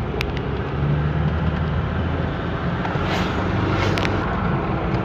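Chevrolet Trailblazer running steadily on the move, a low engine hum with road noise, and a short click near the start.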